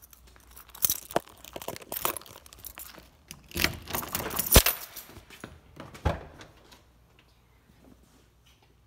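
Rustling and crinkling handling noise with several sharp clicks, loudest around the middle and dying away about six seconds in.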